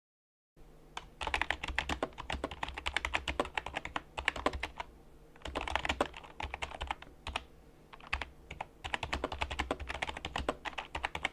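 Sades EK-1 LED keyboard being typed on: rapid runs of key clicks with short pauses between bursts.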